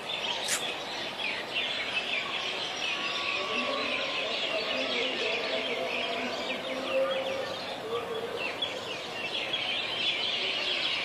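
Many caged birds chirping and calling at once in a dense, steady chorus of rapid high chirps, with a few lower calls mixed in.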